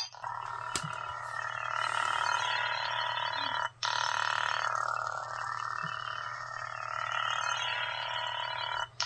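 Toy lightsaber's electronic hum effect played through its small built-in speaker, a steady buzz that swells and eases in level, cutting out briefly twice: a little before halfway and near the end.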